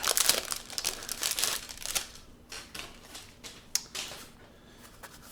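Plastic packaging crinkling and rustling as a travel pouch is unwrapped and opened by hand, dense for about the first two seconds, then thinning to scattered light rustles and clicks.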